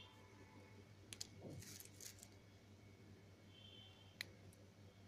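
Faint, crisp snaps and crunches of slate pencils being broken and crumbled between the fingers: two clicks about a second in, soft crunching just after, and a single sharp click about four seconds in.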